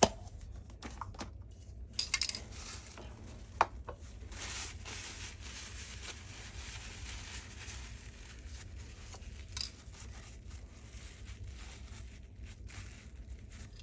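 Clicks and clinks of small hard plastic and metal parts of a cordless vacuum's roller head being handled, a cluster about two seconds in and the sharpest single click about three and a half seconds in, over a faint steady hiss.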